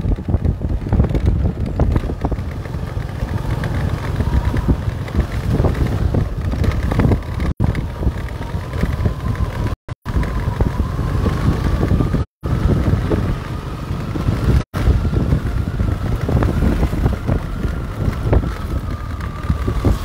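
A moving vehicle's engine and road rumble as it travels along a dirt road, with a faint whine that rises slowly in pitch and falls again. The sound cuts out completely for a moment several times.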